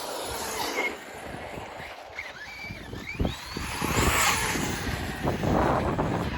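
Arrma Fireteam 6S RC car driving back toward the microphone: its brushless motor gives a rising whine as it accelerates, over rough tyre-on-ground noise that grows louder toward the middle.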